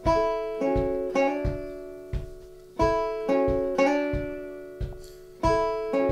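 Banjo played as a slow fingerpicked accompaniment: plucked notes ring out and fade, with new notes struck every half second or so and a soft low thump under many of them.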